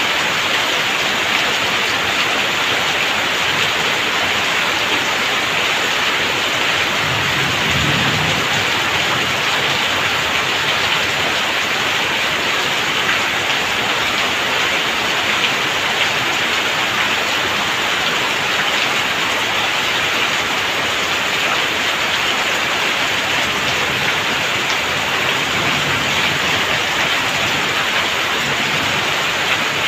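Heavy rain falling steadily, streaming off the eaves of a clay-tile and corrugated-metal roof and splashing onto the ground below.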